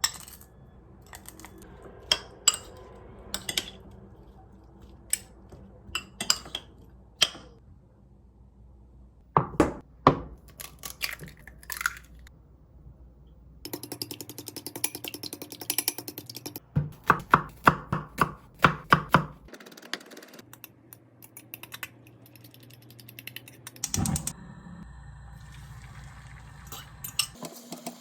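Kitchen handling sounds: sharp clicks and knocks of containers and dishes being set down and moved, with a run of quick, even taps in the middle.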